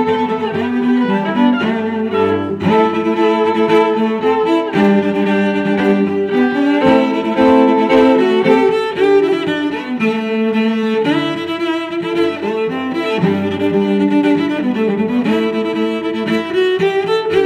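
Background music on bowed strings, fiddle and cello, playing sustained notes that change every second or so.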